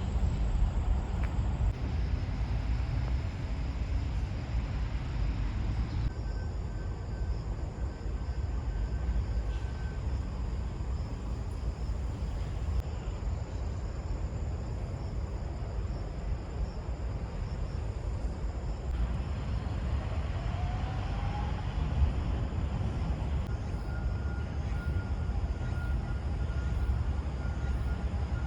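Outdoor ambience: a steady low rumble of distant traffic, with a faint rising whine about two thirds of the way through.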